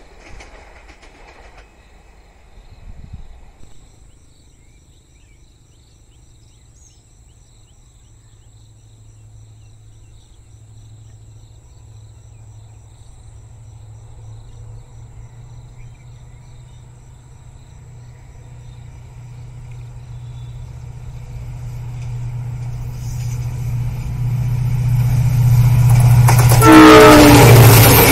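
EMD WDP-4D diesel locomotive, with its two-stroke V16 engine, approaching: a low steady engine drone grows louder over the last two-thirds, ending in a loud close pass with a brief horn note that slides down in pitch.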